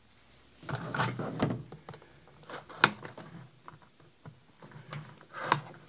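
A multitool's knife blade slitting the seal of a small cardboard box. Irregular scraping and rustle of the cardboard, with a few sharp clicks as the box and tool are handled.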